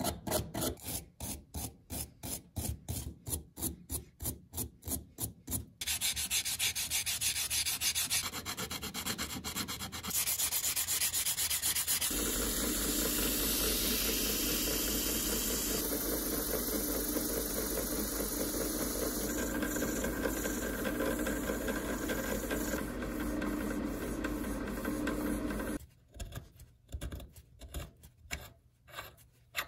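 Quick rhythmic brush strokes scrubbing rust off the steel gear shaft of a vintage egg beater hand drill. Then a long steady sanding hiss as the shaft spins in a drill press against 150-grit abrasive cloth, with the press motor's low hum, and short rhythmic strokes again near the end.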